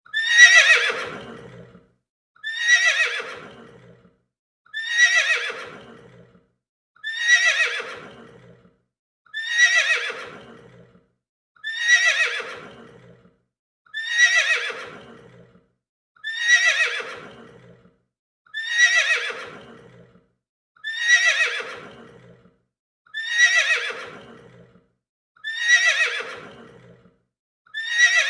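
Horse whinnying over and over: the same call repeats about every two seconds, each one starting sharply, falling in pitch and fading out before the next.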